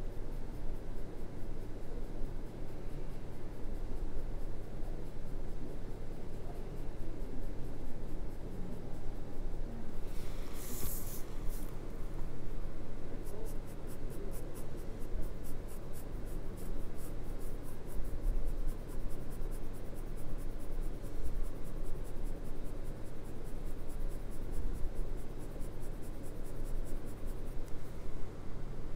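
Graphite pencil shading on drawing paper: a steady scratchy rubbing made of quick, short back-and-forth strokes. About ten seconds in there is a brief, louder rustle.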